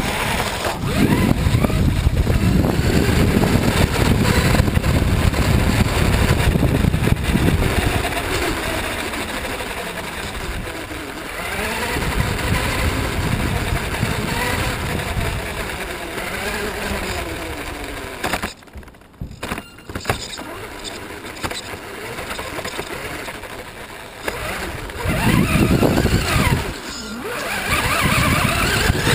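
Onboard sound of an FTX Enrage 1/10 RC buggy driving hard: rough tyre and drivetrain noise over the gravel path and grass, with the motor's whine rising and falling as it speeds up and slows. It goes almost quiet for about a second two-thirds of the way through, then picks up loudly again.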